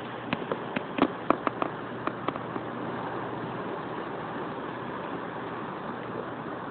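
Steady wind and sea noise on an open ship's deck under way, with a faint low steady hum. A quick run of sharp clicks or taps comes in the first couple of seconds.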